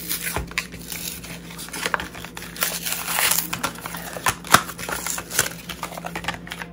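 Retail packaging of a small eyeshadow palette being crinkled and torn open by hand: irregular crackling and rustling, with one sharp click about four and a half seconds in.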